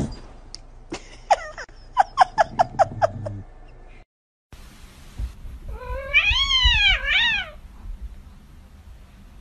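Cats meowing: a quick run of short, falling mews, then, after a brief break, one long, loud, wavering yowl that rises and falls in pitch.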